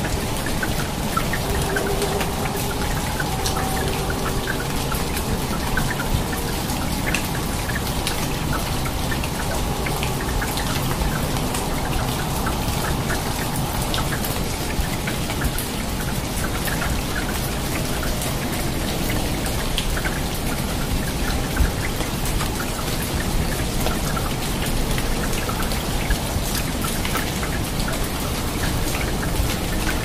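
Steady rain falling on rainforest foliage, with many individual drops striking close by.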